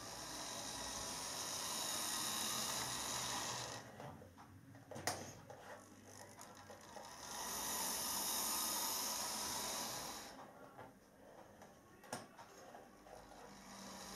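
Non-digital model Class 43 HST power car running on model railway track: its small electric motor whirs and its wheels rattle on the rails, growing louder twice as it passes close, with a couple of sharp clicks.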